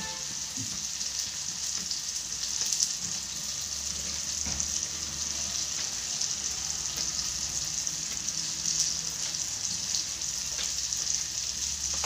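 Onion-tomato masala frying in oil in a kadhai, with a steady sizzle and a few small crackles.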